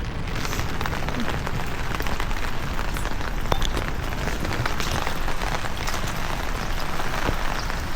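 Steady rain falling: an even hiss dotted with many small drop ticks, over a low rumble.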